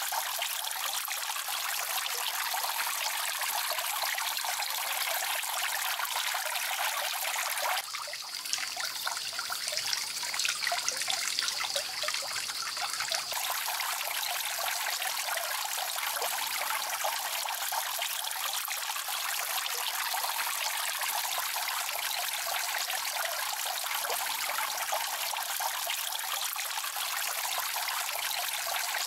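Water trickling and splashing steadily into a shallow mud pond. For a few seconds about eight seconds in, the sound changes character, then the steady trickle returns.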